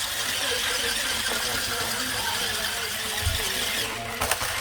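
Toy remote control stunt car driving and spinning on the floor, its small electric motors whining steadily, with a few sharp knocks near the end.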